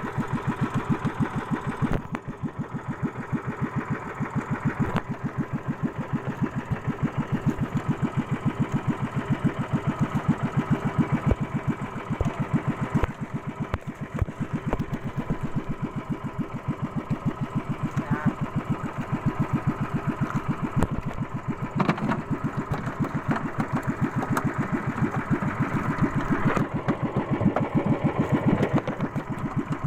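The engine of a small outrigger fishing boat running steadily under way, a fast, even chugging.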